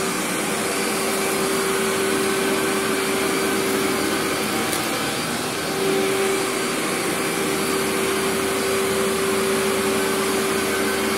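Old bagless vacuum cleaner with a rotating brush, fitted with a new motor, brush and belt, running steadily over carpet. A steady hum runs through its rushing noise and fades for a few seconds mid-way.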